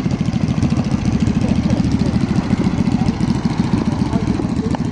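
Motorcycle engine idling close by, a steady rapid low throb.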